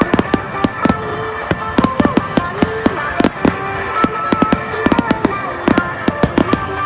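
Fireworks going off in quick succession, several sharp bangs and crackles a second, over music with steady held tones.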